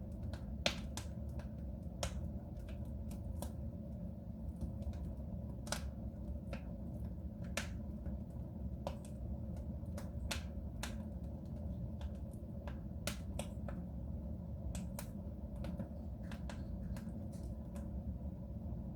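Wood fire burning in a soapstone stove: irregular sharp crackles and pops over a steady low rumble of the flames, with one louder pop about a second in.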